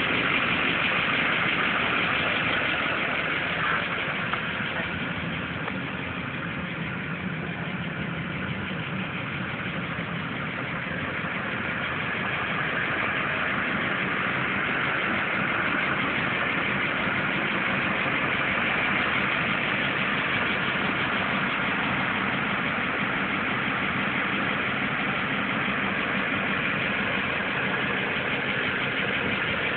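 Engine of a custom Cadillac Escalade tow truck idling steadily, dipping a little in loudness in the first third.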